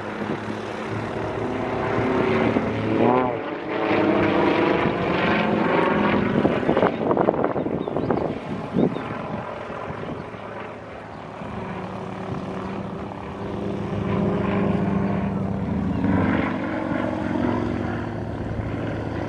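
A propeller-driven airplane flying past. Its engine drone swells and shifts in pitch as it passes, loudest in the middle.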